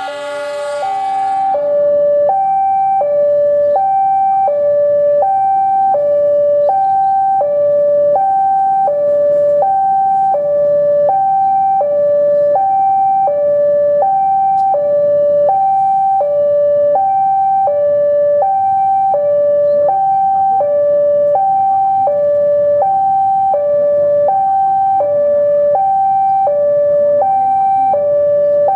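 A two-tone warning signal alternating steadily between a high note and a low note, each held about three quarters of a second, over a low steady rumble. It starts about two seconds in and keeps an even, loud pace.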